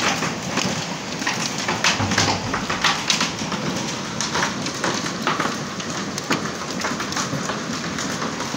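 Hailstorm: a dense, steady clatter of hail with many irregular sharp hailstone strikes on hard surfaces close by.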